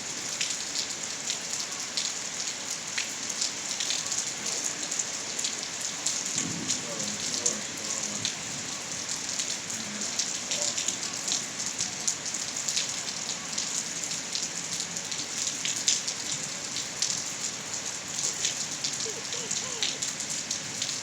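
Steady rainfall: a constant dense hiss of rain, with many separate drops tapping sharply on hard surfaces.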